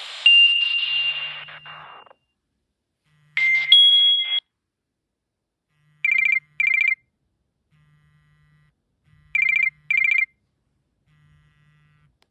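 Nokia N79 stock ringtones: a chime note fading out over the first two seconds, then a brief two-note chime about three seconds in. After that come two pairs of short beeps, the pairs about three seconds apart.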